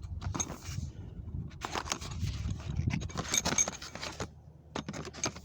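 A packet of hub-centric rings being opened and handled: rustling packaging with rings clicking and rattling against each other, busiest in the middle.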